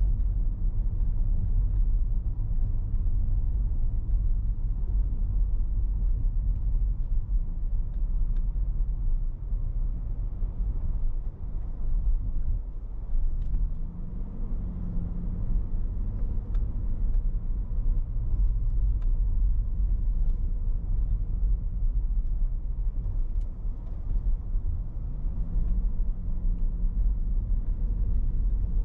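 Car driving at low speed, a steady low rumble of engine and road noise. Twice, about halfway through and again near the end, the engine's pitch rises as the car speeds up.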